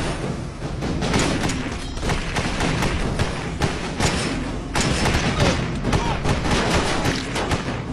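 Film gunfight sound effects: rapid bursts of assault-rifle fire, many shots close together, with thuds over a steady low rumble. The shots come thickest in the second half.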